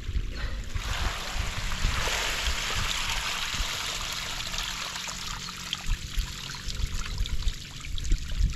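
Water splashing and trickling as a plastic basin is dipped into a netted pen crowded with catfish fingerlings and lifted out full of fish and water. The splashing is heaviest in the first half and then eases.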